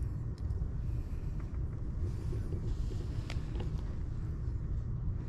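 Steady low rumble with a few faint ticks and scratches from kittens wrestling on a fleece bed in a cardboard box.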